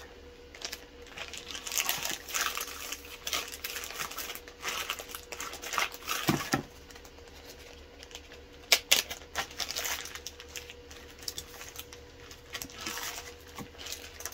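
Plastic wrap and freezer bags crinkling and rustling in irregular handfuls as meat is wrapped, with a sharp click about nine seconds in.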